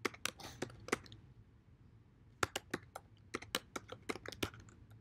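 Typing on a computer keyboard: a quick run of key clicks in the first second, a pause of over a second, then another run of keystrokes.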